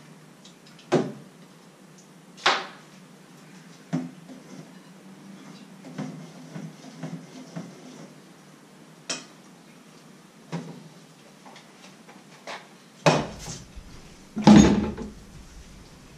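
Dishes and kitchen utensils being handled on a counter: about a dozen separate clinks and knocks at irregular intervals, the loudest two close together near the end.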